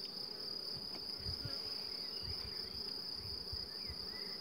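Honeybees humming around an open hive, under a steady, high-pitched insect trill, with a few faint chirps.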